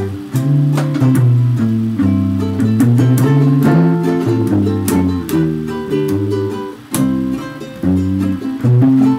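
Acoustic guitar music: plucked notes over a bass line that moves every half second or so.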